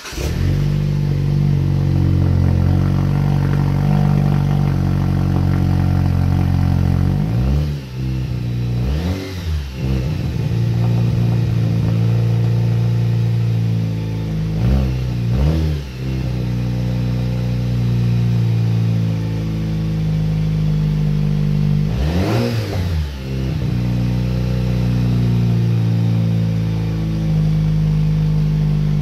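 2018 Jeep Wrangler's 2.0 L turbocharged four-cylinder sounding through an MBRP XP Series axle-back exhaust, idling just after start-up. It is revved briefly five times: twice a little before ten seconds in, twice around fifteen seconds, and once around twenty-two seconds, each rev rising and falling back to idle.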